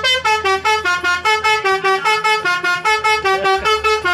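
Basuri 'telolet' multi-tone bus horn playing a quick staccato tune, about five short notes a second, each note at a different pitch.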